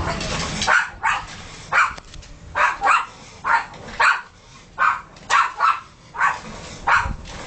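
Dog barking repeatedly: about a dozen short, sharp barks, one every half second to second.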